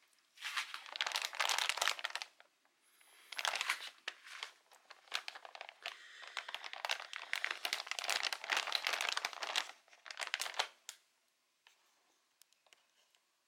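Clear plastic poly bag crinkling as it is handled and pressed, in two long stretches with a short pause between, stopping about eleven seconds in.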